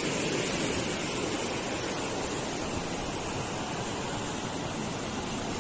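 Steady rushing of water pouring through a canal sluice gate.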